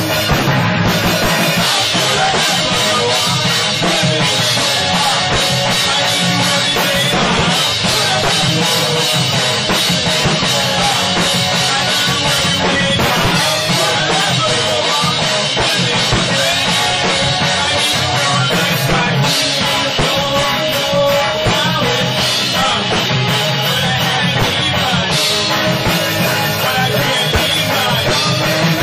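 A live rock band playing loudly in a small rehearsal room: drum kit, electric guitars and a singer's vocal through a microphone.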